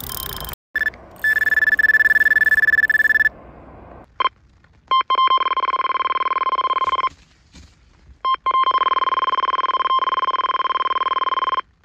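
Electronic carp bite alarms sounding a run, as a hooked carp takes line: first a high-pitched alarm tone for about two seconds, then a Fox RX+ receiver sounding a lower tone of very fast beeps, twice, for about three seconds each.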